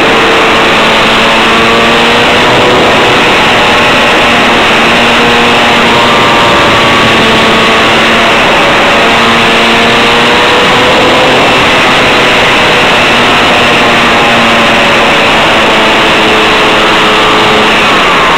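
Model airplane's motor and propeller running steadily, heard close from a camera mounted on the plane, under heavy wind and vibration noise. The motor's pitch steps slightly up and down several times.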